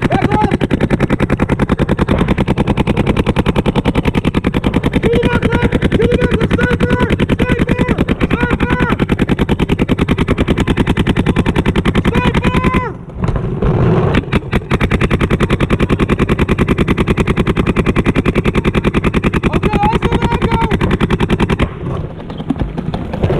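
Paintball marker firing a rapid, even stream of shots, many per second. The stream breaks for a second or two partway through, leaving only a few scattered shots, then resumes and stops near the end.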